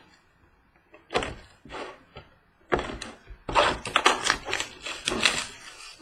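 A sealed trading-card box being opened by hand: crinkling and tearing of its wrapper and cardboard rustling. A few short rustles come about a second in, then a dense run of crackles from about three seconds in.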